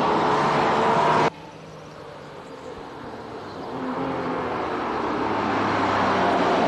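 Ferrari F50's 4.7-litre V12 running at high revs, its pitch climbing, then cutting off abruptly a little over a second in. It comes back much quieter and grows steadily louder toward the end.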